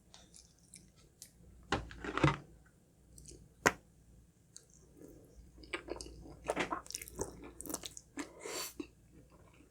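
Close-miked mouth sounds of eating Filipino spaghetti: wet chewing with scattered sharp mouth clicks, one loud click about three and a half seconds in, and busier chewing in the second half.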